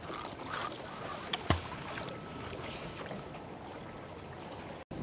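Faint steady background noise with a single low thud about one and a half seconds in.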